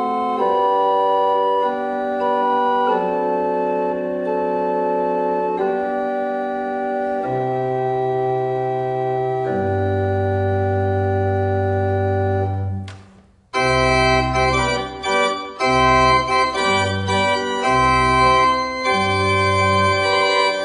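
Small pipe organ playing held chords that change every second or two, with low bass notes joining about seven seconds in. Just past halfway the sound breaks off briefly, then a livelier passage follows over a bass line moving in short notes.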